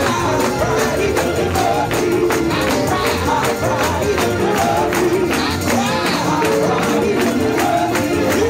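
Live up-tempo Pentecostal gospel music: a tambourine shaken on a fast, steady beat, with voices singing over the band.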